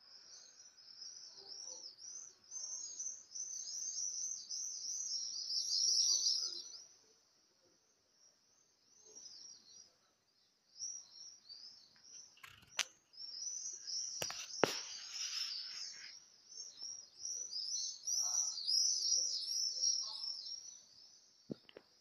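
A flock of small birds chirping in a dense, rapid, high-pitched chorus, in two long bouts with a lull between them. A couple of sharp clicks come midway.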